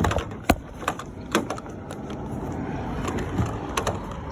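A fuel filler door lock actuator being worked loose by hand from the car body: a handful of sharp plastic clicks and knocks with rubbing and scraping in between.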